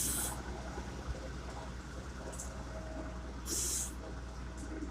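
A machine's engine running with a steady low hum, broken by four short bursts of hissing.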